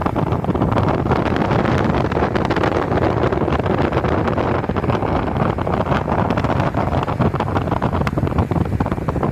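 Wind rushing over the microphone mixed with the steady noise of a moving vehicle, with a dense patter of small crackles throughout.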